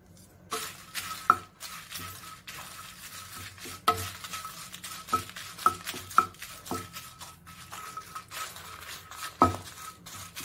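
Wooden spatula stirring and scraping dried red chillies around a small nonstick pan as they dry-roast without oil, with irregular knocks of the spatula against the pan.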